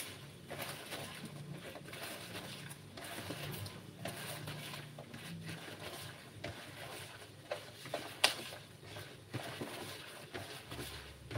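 Hand squeezing wet grated coconut in a plastic basin to press out coconut milk: soft, irregular wet pattering and clicks, with one sharp click about eight seconds in.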